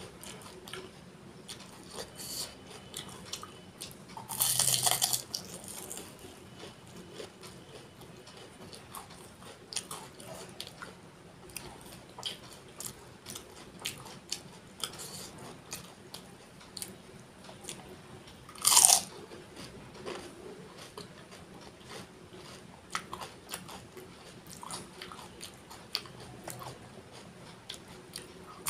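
Close-miked eating of pani puri: crisp puri shells filled with spiced water being bitten, crunched and chewed, with many small crackles. Two much louder bites stand out, about 5 seconds in and again about 19 seconds in.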